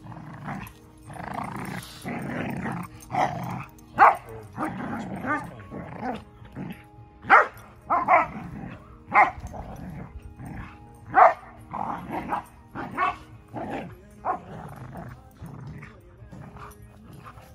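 Standard schnauzer growling and barking in rough play with a puppy: a run of loud play growls broken by a dozen or so sharp barks. The vocalising sounds fierce but is play, not aggression.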